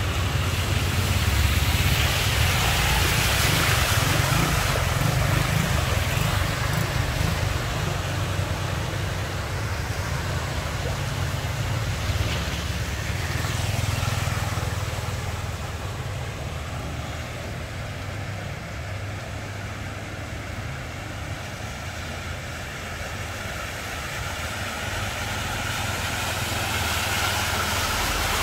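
Motorbike and car engines passing along a flooded street, tyres swishing through the standing water over a steady wash of water noise. The traffic is loudest over the first several seconds, eases off in the middle, and builds again near the end as a car ploughs through the water, throwing up spray.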